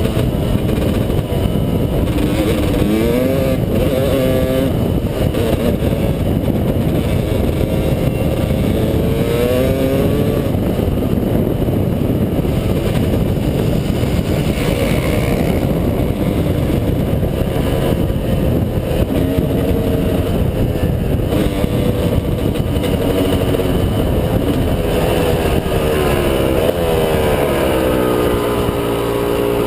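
Dirt bike engine running hard, the pitch climbing and dropping with each gear change, over a steady rush of wind. Near the end the revs fall away several times as the bike slows.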